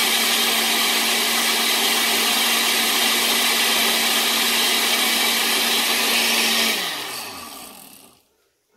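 Countertop blender running steadily on a thick mole mix of ancho chiles and water, with a steady motor hum. About seven seconds in it is switched off, and the motor winds down with falling pitch to a stop.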